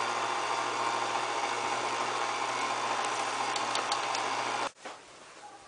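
KitchenAid Artisan stand mixer running steadily, its motor and beater churning butter-and-sugar cookie dough with eggs in a steel bowl; the mixer is switched off and the sound cuts off abruptly near the end.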